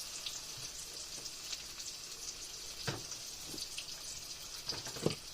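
Green tomato slices frying in a pan: a steady sizzle with a few sharp pops, the loudest about three seconds in and just before the end.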